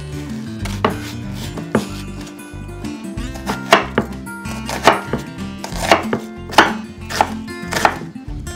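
Chef's knife chopping an onion on a wooden cutting board: a few spaced cuts at first, then quicker, about two a second from around three seconds in. Background music plays underneath.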